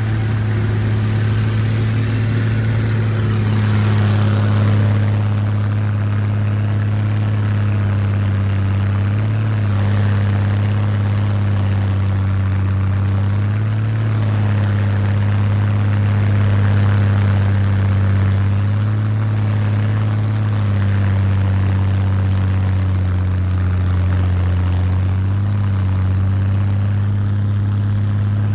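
Snowcat engine running steadily as the machine drives over snow, a deep even drone whose pitch shifts slightly up and down every few seconds.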